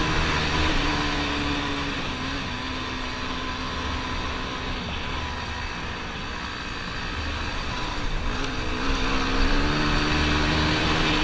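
Dirt bike engine running at speed under heavy wind and road noise; the engine note drops away for a few seconds, then climbs again toward the end as the bike accelerates.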